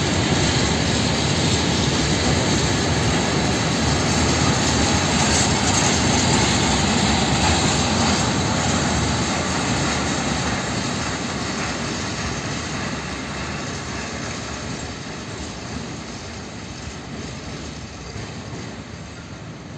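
Freight train of open coal wagons rolling past on the rails: a steady rumble of steel wheels on track that fades as the last wagon draws away.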